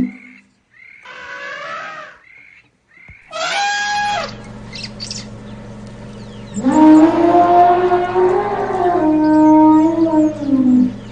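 Elephant calls: a few short calls in the first four seconds, then one long trumpet of about four seconds that drops in pitch as it ends. A steady low hum runs under the second half.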